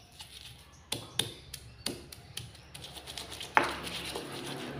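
Stone pestle knocking and grinding against a stone mortar (Indonesian cobek and ulekan) as raw shallots are crushed: several sharp knocks, the loudest about three and a half seconds in.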